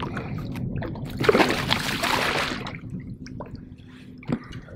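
Water splashing and sloshing as a large pike is handled in a landing net at the side of a boat, with a loud burst of splashing about a second in that lasts around a second and a half. A single sharp knock sounds near the end.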